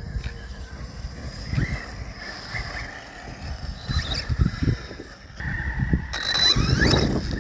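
Redcat Volcano EPX Pro RC monster truck's 3300 kV brushless motor whining as the truck runs on 3S, with the whine sweeping up in pitch in bursts of throttle, loudest near the end.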